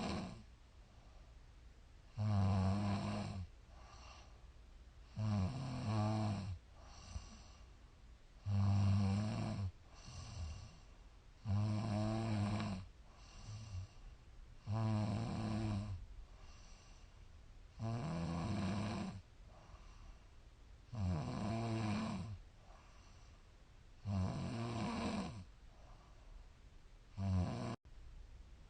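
A woman snoring steadily, a loud rasping snore about every three seconds, each followed by a shorter, quieter breath.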